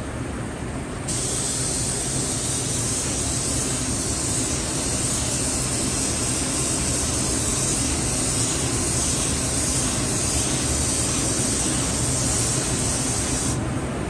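Compressed-air gravity-feed paint spray gun hissing steadily as base colour is blended on. The hiss starts about a second in and cuts off briefly near the end as the trigger is let go.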